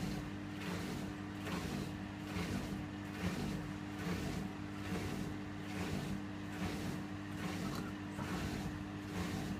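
Candy Aquamatic 2 compact washing machine running empty on a descaling wash: a steady motor hum, with the drum turning and giving a rhythmic swish about twice a second.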